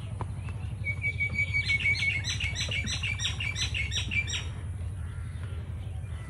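A bird calls: one held high whistle, then a quick run of about a dozen repeated chirps that stops about four and a half seconds in, over a steady low rumble.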